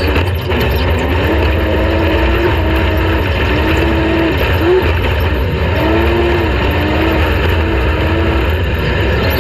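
Off-road race vehicle's engine running hard, its pitch dipping and rising several times, over a heavy steady rumble.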